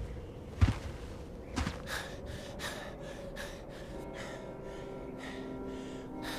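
A series of heavy, gasping breaths, with a dull low thud about half a second in. Soft sustained music tones come in about two-thirds of the way through.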